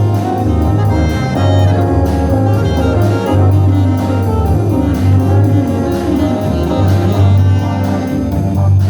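A band playing a jazz number, with horns holding chords over a steady bass line and drum beat.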